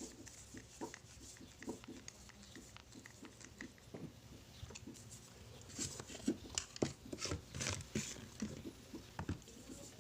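Scattered small clicks and taps of nebulizer parts and screws being handled during reassembly, thickest from about six to nine seconds in.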